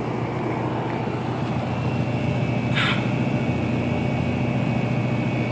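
2007 Rheem Classic 3-ton central air conditioner's outdoor unit running: a steady low compressor hum under the even rush of the condenser fan. A brief high chirp sounds about three seconds in.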